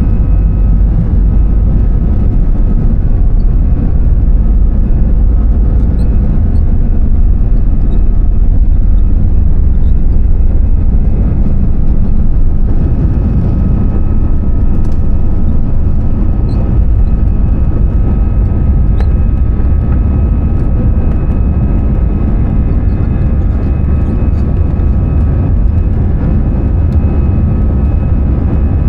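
Steady cabin noise of an Airbus A320-214 with its CFM56-5B engines running: a loud, even low rumble with a few faint steady tones above it.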